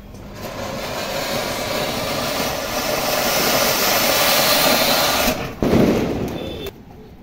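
Ground fountain firework spraying sparks with a loud, steady hiss that builds over about five seconds. The hiss breaks off briefly, comes back and stops sharply just before the end.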